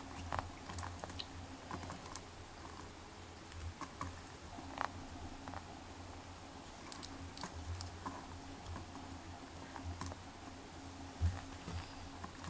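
Faint, scattered small ticks and clicks of fingers handling monofilament fishing line while wrapping a knot, over a low steady hum.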